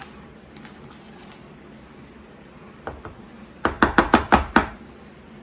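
A measuring scoop knocked against a bowl to shake out powder mix: a few faint clicks, then a quick run of about seven sharp taps a little under four seconds in.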